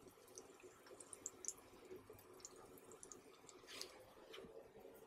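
Faint sizzle of garlic butter frying under bread slices on a hot griddle, with scattered small crackles and pops.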